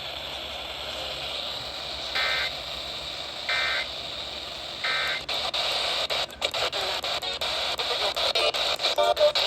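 Radio broadcast hiss, then three short bursts of warbling EAS data tones (the SAME end-of-message code) about a second and a half apart, marking the end of the alert test. After the third burst the reception turns crackly, with rapid clicks and dropouts in the static.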